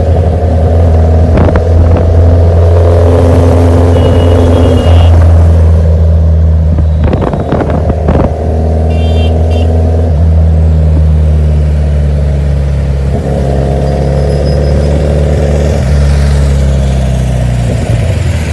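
Suzuki Hayabusa's inline-four engine running at a steady speed, its note holding even with only a slight shift about two-thirds of the way through.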